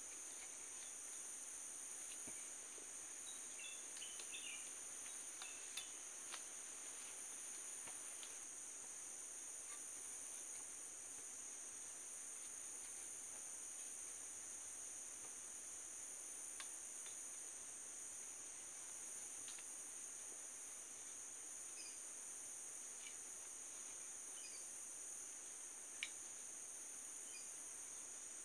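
Steady high-pitched insect chorus droning without a break, with a few faint clicks and taps, the sharpest one near the end.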